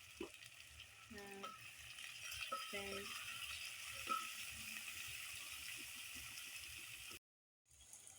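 Onions and ground spices frying in hot oil in a pan: a steady sizzle, with a few light clicks of the stirring spoon against the pan. The sound cuts out for a moment near the end.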